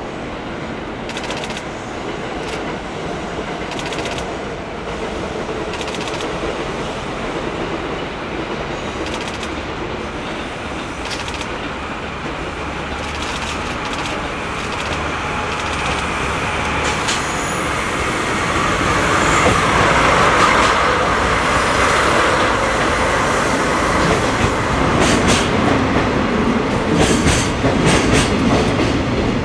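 JR Freight DD51 twin-engine diesel-hydraulic locomotive approaching and passing with its engines running, growing steadily louder, with a thin high whine as it goes by. Container wagons follow, rolling past with a clickety-clack of wheels over the rail joints near the end.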